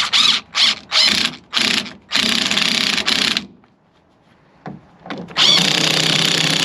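Cordless drill running in several short bursts, then in two longer runs, most likely driving hose-clamp screws tight on a freshly fitted hose.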